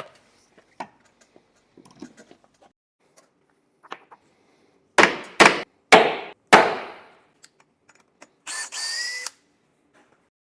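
Light handling clicks, then four loud knocks about half a second apart, each ringing out briefly. Near the end a cordless drill-driver runs for under a second, its whine rising slightly, driving a screw into the cabin's wooden panels.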